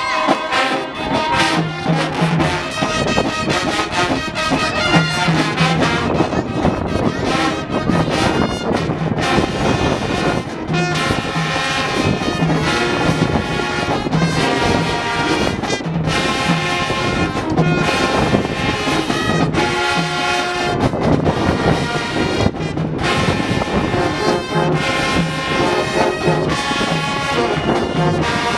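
High school marching band playing, brass-heavy, with trombones and trumpets carrying the tune over a repeating low bass figure.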